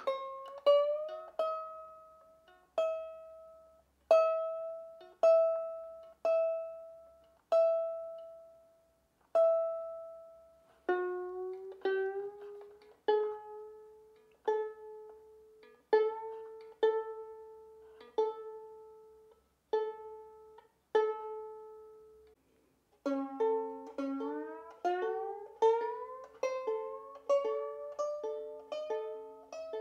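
Open strings of a violin plucked one at a time, about once a second, while freshly fitted strings are brought up to pitch with Wittner Finetune geared pegs. Some notes hold steady; on others the pitch slides upward while the string rings as its peg is turned, several times in a row in the last few seconds.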